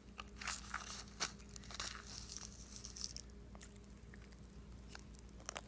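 Faint, scattered crackles and clicks of Pop Rocks candy being scooped with a spoon and eaten.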